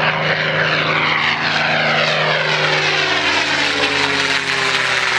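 P-51 Mustang's Packard Merlin V-12 engine and propeller in a low pass, a loud steady drone whose pitch drops as the fighter passes overhead.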